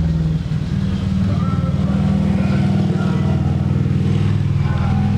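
An engine running steadily with a low, pulsing rumble, with faint voices beneath it.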